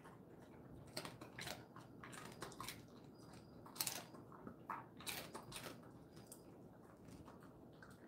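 Jindo-mix dog crunching and chewing a chicken-foot treat, with irregular sharp crunches that are loudest about four seconds in and trail off near the end.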